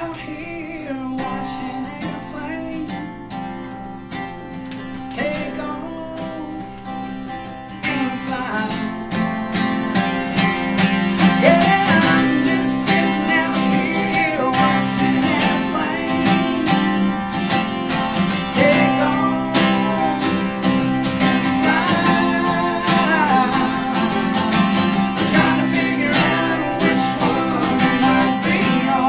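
A country band playing, led by strummed acoustic guitar, with no lyrics sung; the playing grows louder and fuller about eight seconds in.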